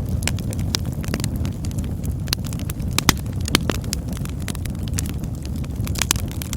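Campfire burning: a steady low roar of flames with many irregular crackles and pops, the sharpest snaps about three seconds in and again around six seconds.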